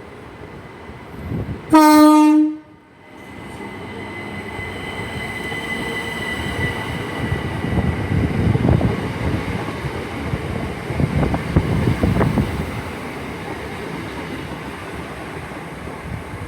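Class 377 electric multiple unit sounds one short horn blast, a single note, about two seconds in, then pulls away with a high steady whine and a rumble of wheels on rails that builds and stays up.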